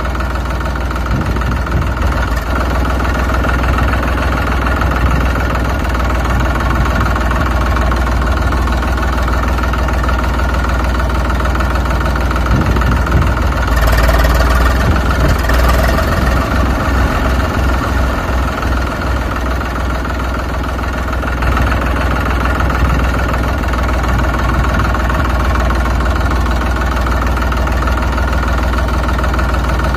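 Tractor diesel engine idling steadily, a little louder around the middle.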